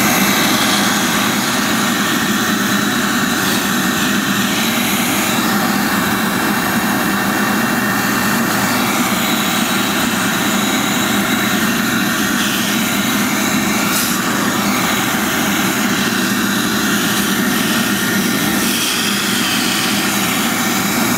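Vacuum cleaner running steadily, sucking air through a funnel and a thin plastic tube pushed into a car's lower grille to pull out trapped leaf debris.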